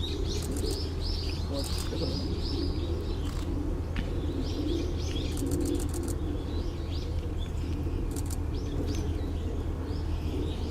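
Small birds chirping repeatedly in short high notes, over a steady low background hum, with a few brief bursts of clicks.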